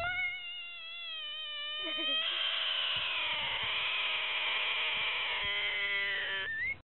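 An animal's single long, drawn-out cry with a clear pitch, held for nearly seven seconds and cut off abruptly near the end.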